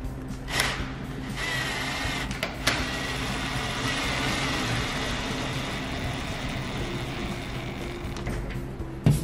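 A power screwdriver with a socket runs a solar-panel clamp bolt down, its small motor whirring for about six seconds from just over a second in, with a few sharp clicks around it. Background music plays underneath.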